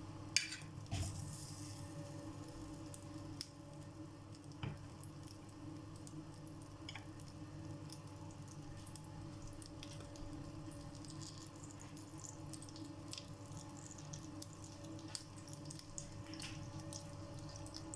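Butter melting in a hot pan, with faint scattered crackles and pops over a steady low hum. A couple of louder knocks come in the first second.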